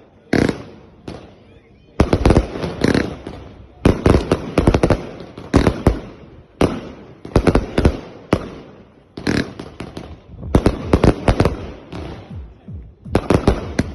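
Volt 'Shots of Anarchy' firework battery firing clusters of sharp bangs every one to two seconds; the uploader says it was wrongly fused.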